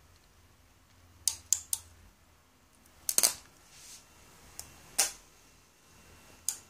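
An IC on the circuit board of a Panasonic TH-42PV60E plasma TV sparking, making sharp irregular snaps. Three come about a second in, a quick cluster about three seconds in, then single snaps around five seconds and near the end. The sparking marks a failing board, the fault behind the TV's half-dead screen.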